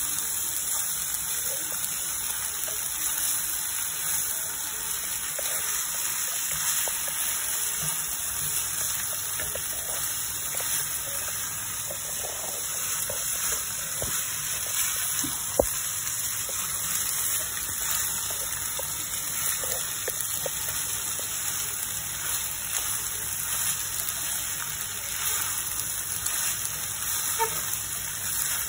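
Steady hiss of quinoa and vegetables frying in a pan while a wooden spatula stirs them, with faint scrapes and one sharp tap of the spatula on the pan about halfway through.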